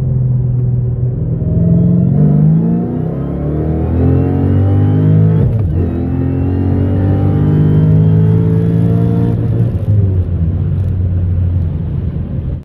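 Dodge Hellcat's supercharged V8 pulling hard at full throttle, climbing steadily in revs with a rising supercharger whine above the exhaust note. About halfway through there is an upshift of the stick-shift gearbox: the revs drop, then climb again.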